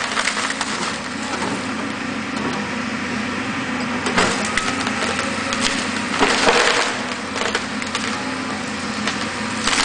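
Volvo crawler excavator's diesel engine running steadily under load as its arm pushes over a tree, with the trunk and branches cracking and splintering in bursts, loudest about four seconds in and again around six and a half seconds in.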